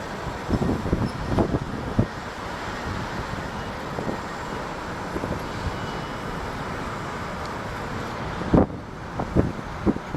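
Steady noise of a jet airliner's engines at the airport, with wind gusting on the microphone.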